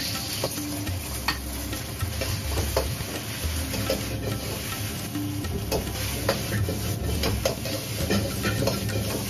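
Egg and rice being stir-fried in a hot wok: sizzling, with a metal ladle scraping and clacking against the wok many times over a low, steady gas-burner rumble.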